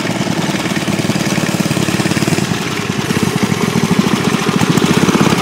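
Mini bike's small engine running, a fast, even train of firing pulses that grows louder near the end.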